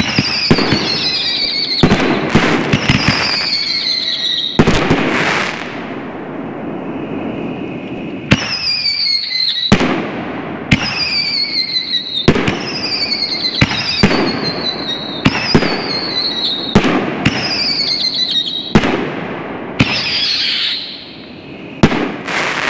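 Fox Fireworks Sonic 5-inch whistling canister shells firing one after another: a string of high falling whistles, each about a second long, broken by sharp bangs from launches and shell breaks.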